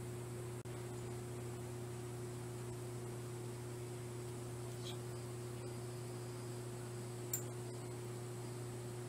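A steady low hum that briefly drops out under a second in. A faint high chirp sounds about halfway through, and a short, sharper high squeak comes near the end.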